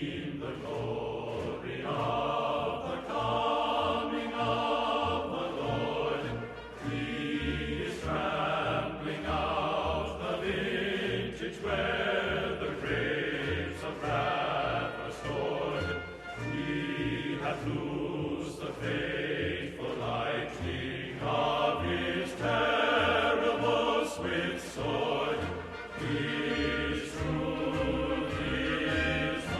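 Background music with a choir singing over a steady low beat.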